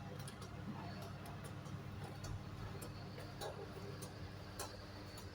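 Irregular light clicks and ticks, a few a second, over a low steady hum.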